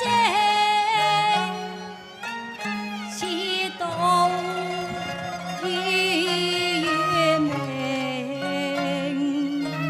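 Cantonese opera accompaniment ensemble playing an instrumental passage, led by bowed strings: a sliding, wavering melody over held low notes.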